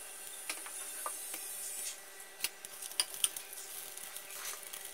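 Mustard seeds and dried red chillies frying in hot sesame oil in a steel kadai for tempering: a high sizzle that fades about two seconds in, with scattered sharp pops and ticks as the seeds splutter against the pan.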